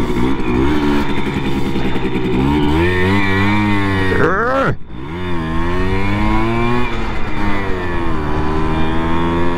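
Simson moped's single-cylinder two-stroke engine running under way. Its revs climb, fall sharply for a moment about halfway through, then pick up again and settle.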